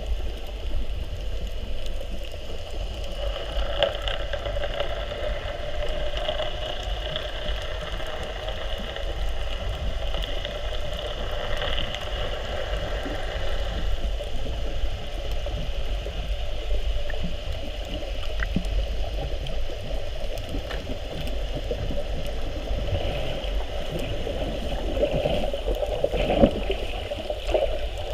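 Underwater sound picked up by a camera in its waterproof housing: a steady low rumble of water with gurgling and swishing that swells and fades, and a few brief louder surges near the end.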